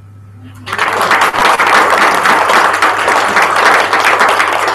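A small audience applauding, starting abruptly just under a second in: a dense, even patter of many hands clapping.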